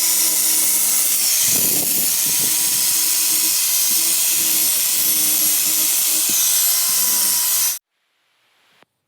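A workshop tool running steadily with a strong hiss over a faint hum, cutting off abruptly near the end.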